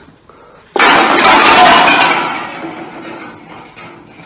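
A sudden loud crash of something smashing, with clinking that dies away over about two seconds.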